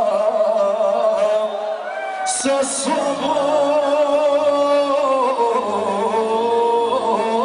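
Live Serbian pop-folk band music, played loud in a hall and recorded from the audience, with a sustained wavering melody line and singing. Two short bright hits come about two and a half seconds in.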